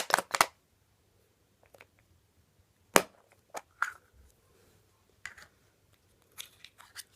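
A surprise egg being broken open by hand: a few sharp clicks, then one loud snap about three seconds in, followed by scattered lighter clicks and rustles of handling.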